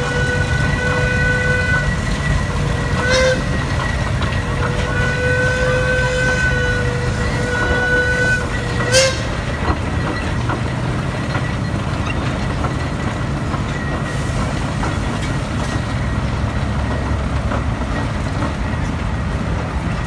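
Steam whistle blowing about five toots over the steady low rumble of a J.I. Case steam traction engine driving past. The toots come as a blast of over a second, a short one about three seconds in, two longer ones between five and eight seconds, and a last short one near nine seconds that ends in a sharp burst. After that only the engine's rumble goes on.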